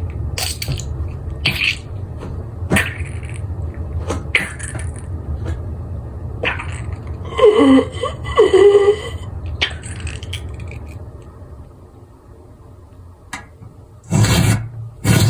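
Layered horror sound effects: a low rumbling drone with scattered knocks and creaks, two louder groan-like cries about halfway, and a loud rasping scrape starting near the end.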